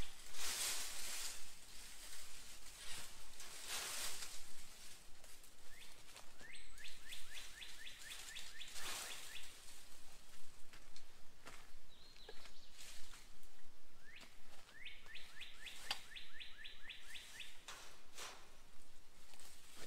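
Woodland ambience: a bird gives a rapid, even trill of about ten notes a second, twice, each run lasting two to three seconds. Brief rustling swishes come and go as brush is worked against the trap's wire panels.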